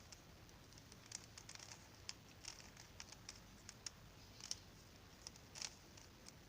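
Faint, irregular clicks of a plastic 3x3 Rubik's cube, its layers being turned by hand.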